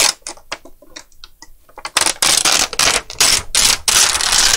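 A few light plastic clicks, then a thin plastic reflector sheet crinkling and rustling loudly as it is lifted out of an LCD TV's backlight tray, starting about two seconds in.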